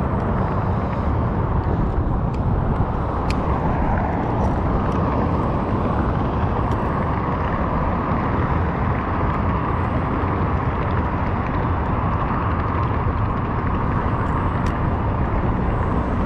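Steady rush of wind and road noise on a GoPro riding along on an electric scooter, heaviest in the low end, with a few faint clicks.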